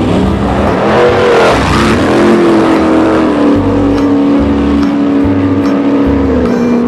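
Motor vehicle engine sound, running steadily with its pitch stepping down several times, as if easing off.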